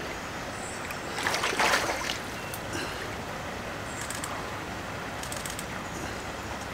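Lake water splashing briefly about a second in, then faint sloshing and small knocks over a steady hiss.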